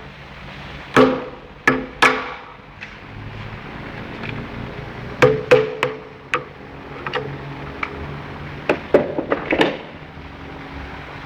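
Mallet striking a flat screwdriver to drive a pin out of a motor: about a dozen sharp knocks in irregular groups, some leaving a short metallic ring.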